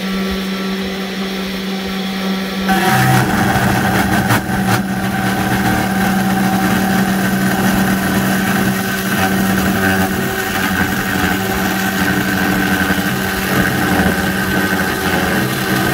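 CNC 3018 router's 500-watt brushless spindle running with a steady hum, then, about three seconds in, its end mill bites into aluminium. From there it is a loud, steady milling noise with a high tone as the cutter chews through the metal.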